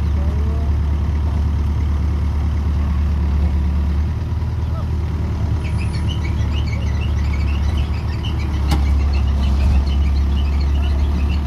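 Ace 14XW hydraulic crane's diesel engine running steadily under load as it works the boom to lift an overturned truck, easing slightly about four seconds in and picking up again about nine seconds in.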